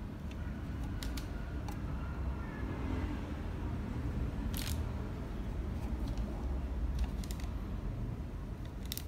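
A plastic universal car drawer handled and turned in the hand: a few light clicks and taps scattered over a low steady rumble.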